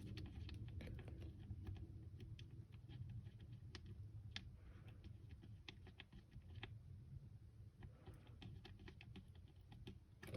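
Faint, irregular small clicks and taps of a screw being threaded by hand into a HANS anchor post on a composite racing helmet.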